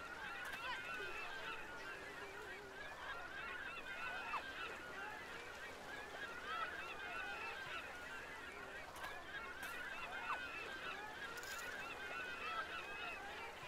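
A flock of birds calling, many short overlapping calls without a pause.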